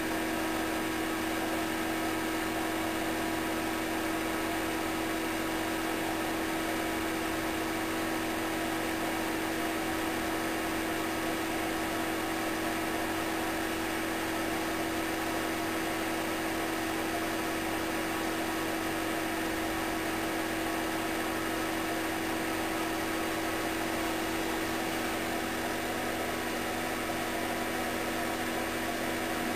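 Steady electrical hum with an even hiss beneath it, unchanging throughout.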